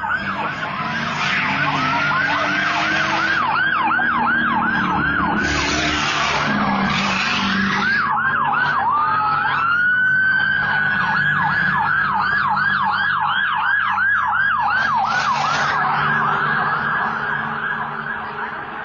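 Several police car sirens wailing in fast yelp mode as police vehicles speed past, the overlapping sweeps coming about two or three a second. About nine seconds in, one siren switches briefly to a slow rising wail before the yelping resumes.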